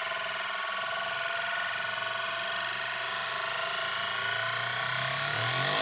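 Euler's Disk, a chrome-plated steel disk, spinning and rolling on its concave mirror base: a steady metallic whirring ring whose wobble climbs in pitch faster and faster over the last second or so as the disk nears its final stop.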